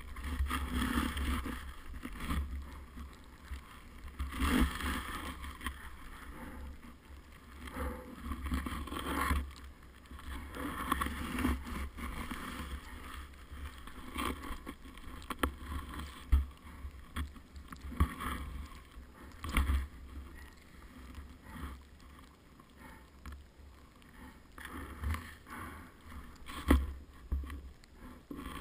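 Irregular swishing and scuffing of deep powder snow and clothing right at a helmet-mounted camera, with a low rumbling buffet on the microphone and a few sharp knocks, as the rider struggles in the snow beside the stuck snowmobile. No engine is running.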